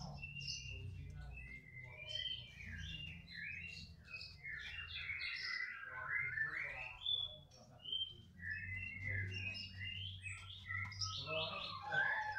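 Songbird singing a fast, varied run of chirped and whistled phrases, almost without pause, with a brief break about halfway through.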